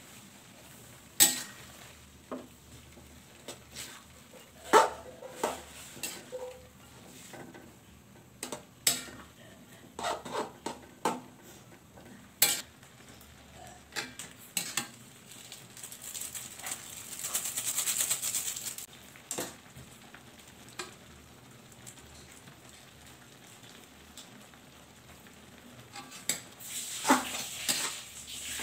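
Metal spatula scraping and clinking against an aluminium wok while stir-frying instant noodles with vegetables, in irregular sharp knocks. A few seconds of sizzling swell up past the middle, and a quick run of clinks comes near the end.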